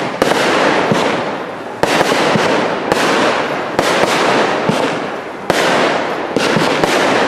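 Fireworks cake display firing aerial shots: about six sharp bangs, roughly one a second, each trailing off into a long crackling sizzle from crackling star effects.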